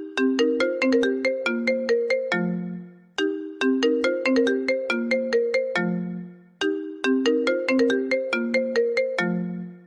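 iPhone ringtone playing: a short melodic phrase of quick, bright pitched notes that repeats about every three and a half seconds, each time ending on a lower held note that fades out.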